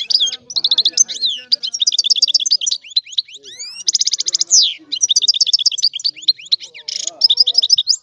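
European goldfinch singing: a long, fast run of twittering trills and rising whistled notes, with a short harsh buzzy note about seven seconds in.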